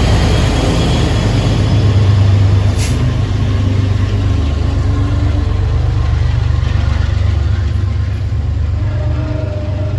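MBTA HSP-46 diesel locomotive pushing a commuter train out of the station, its Cummins QSK95 engine running with a loud, steady low throb that eases slightly later on. A faint high squeal sounds in the first second and a brief sharp hiss about three seconds in.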